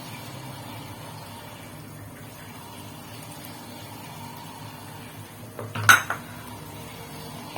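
A utensil clatters briefly against a cooking pot about six seconds in, over a steady low background hum.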